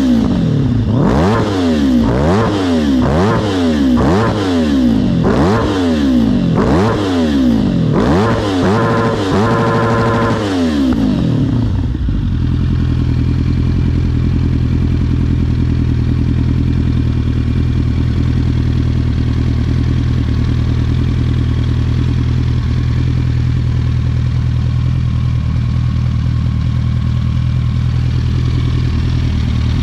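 Yamaha R1 (RN19) crossplane inline-four engine in a Yamaha Raptor quad, revved in quick throttle blips about one a second, each rising and falling in pitch. About eleven seconds in it settles to a steady idle.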